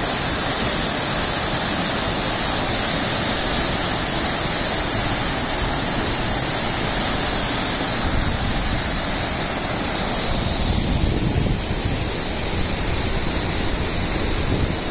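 Waterfall pouring down: a steady rush of falling water.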